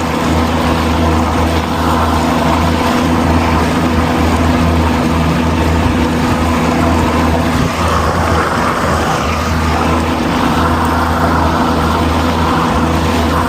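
Motorboat engine running steadily under way, with a steady wash of wind and water noise over it.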